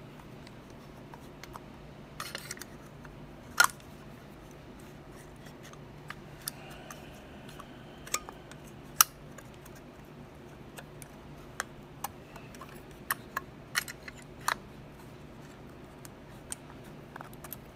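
Olympus Pen EE film camera's metal back and base cover being fitted back onto the body by hand: sharp metal clicks and taps at uneven intervals, some in quick pairs, over a faint steady low hum.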